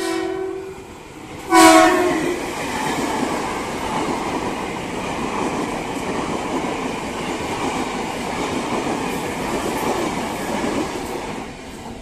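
KRL electric commuter train, the ex-Tokyo Metro 6000 series, sounds its horn in two short blasts, the second and louder about a second and a half in. The train then passes close by with a steady loud rush of wheels on rails, which eases off near the end.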